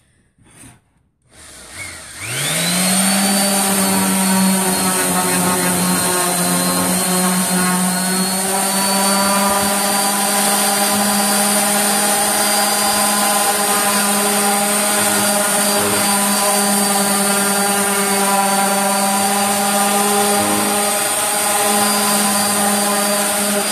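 DeWalt electric orbital palm sander switched on about two seconds in, spinning up to speed and then running with a steady hum while it sands a pallet-wood sign.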